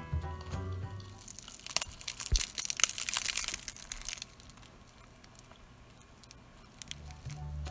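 Crisp shell of a deep-fried samosa, made from spring roll wrapper, crackling and crunching as it is broken open by hand. The crackle lasts about two and a half seconds, starting a second or so in.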